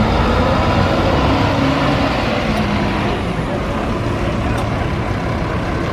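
Diesel engine of a modern double-decker bus running as it pulls past and drives away, easing off a little about halfway through.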